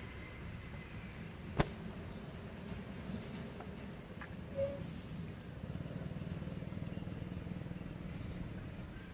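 Steady high-pitched drone of insects over a low background rumble, with one sharp click about a second and a half in and a short squeak about halfway through.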